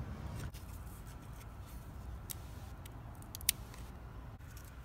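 Faint clicks and light handling of a stiff plastic tab divider being made into a plant label, with one sharp click about three and a half seconds in, over a low steady hum.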